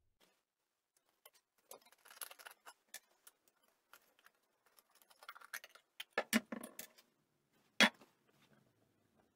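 Small metal clicks and scrapes of a screwdriver working the screws of a Honda P50 moped engine's side cover as it is taken off, with several sharper knocks between about six and eight seconds in, the loudest just before the end.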